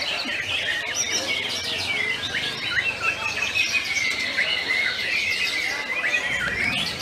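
Many caged songbirds singing at once: a dense chorus of overlapping chirps, whistles and rapid trills, with one long trill held through most of it.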